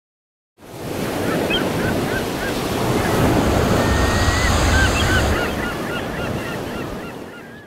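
Surf and wind rushing, with a flock of waterfowl calling over it in quick runs of short notes. The sound fades in about half a second in, swells in the middle and cuts off at the end.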